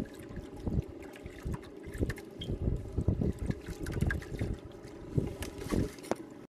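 Small wooden fishing boat rocking on choppy water, waves slapping the hull, with gusty wind buffeting the microphone and irregular knocks.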